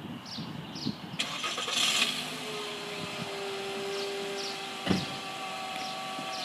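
Car engine starting about a second in and then running with a steady whine. There is a single sharp knock about five seconds in.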